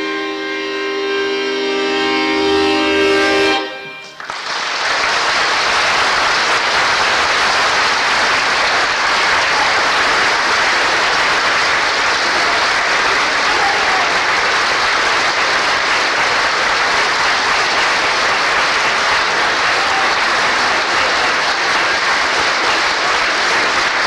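A bayan (Russian button accordion) holds a final sustained chord for about four seconds and cuts off. A large concert-hall audience then breaks into steady applause that carries on for the rest of the time.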